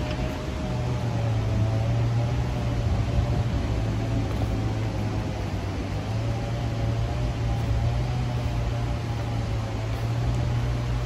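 Steady rushing noise of river rapids, with a low steady hum and a faint wavering tone underneath.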